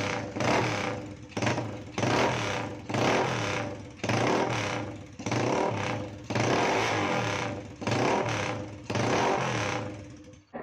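Honda NX250 (AX-1) single-cylinder 250cc engine being revved in short throttle blips, about one a second. Each blip rises sharply and falls back, and the sound stops abruptly near the end.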